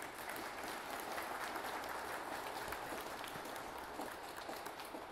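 Audience applauding: many hand claps blending into a steady patter that begins to die down near the end.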